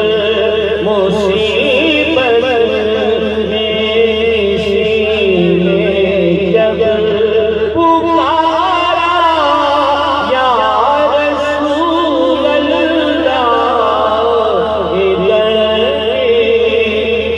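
A man singing a naat, Urdu devotional poetry in praise of the Prophet, in long wavering ornamented phrases over steady held notes, picked up through the stage microphones.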